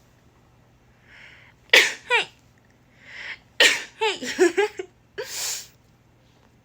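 A woman sneezing twice in quick succession, each sneeze preceded by a short sharp breath in and ending in a high-pitched voiced 'achoo', followed by a breathy puff of air near the end.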